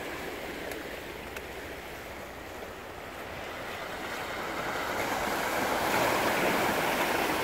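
Sea surf washing against the rocks of a breakwater, swelling louder about two-thirds of the way through as a wave breaks.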